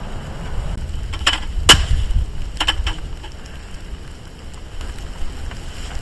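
Raindrops hitting a car-side tarp: a few sharp, irregular taps over a low rumble, with the loudest taps bunched in the first half.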